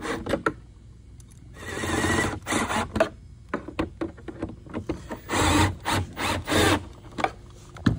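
Cordless drill-driver running in short bursts as it drives screws into a kayak's plastic propeller pod: one run about two seconds in and two more near the end, with clicks and knocks from handling between.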